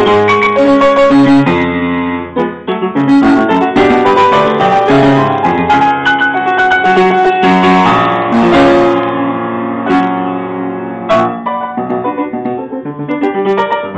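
Steinway & Sons upright piano played loud and fast, with dense rapid passages across the keyboard.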